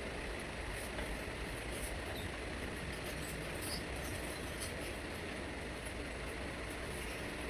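Steady low rumbling background noise with a few faint clicks and taps.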